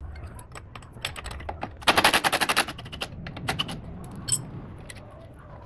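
Impact wrench hammering in a rapid rattling burst of under a second, about two seconds in, on the car's front suspension fasteners. Scattered clicks and clanks of tools come before and after it.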